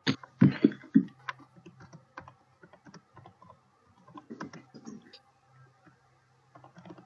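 Computer keyboard typing: a few loud key strikes in the first second, then scattered lighter keystrokes.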